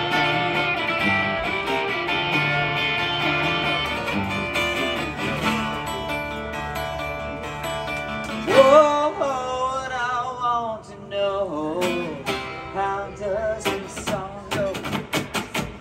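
Solo steel-string acoustic guitar playing ringing chords. About halfway through, a voice comes in singing over the guitar, and near the end the guitar turns to quick rhythmic strumming.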